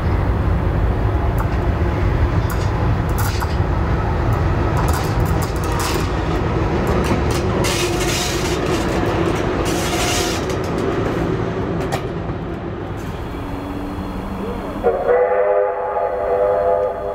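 VL10 electric locomotive and its train passing close by: a heavy rumble with clicks from the wheels over the rail joints, easing off after about twelve seconds. About fifteen seconds in, a train whistle sounds for about two seconds, a chord of several steady tones.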